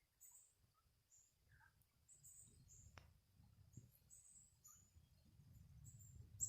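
Small birds chirping faintly in short, high, irregular chirps. There is a single sharp click about halfway through and a low rumble that builds near the end.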